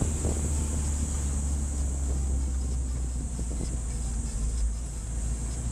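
Vehicle engine and road noise heard from inside the moving vehicle's cabin: a steady low rumble with a constant high hiss over it.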